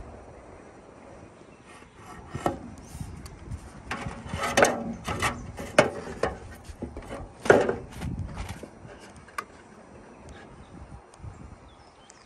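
Irregular scrapes and rubs of a length of metal roof-edge trim being handled and marked on OSB roof sheathing, with a few sharper knocks, loudest around the middle.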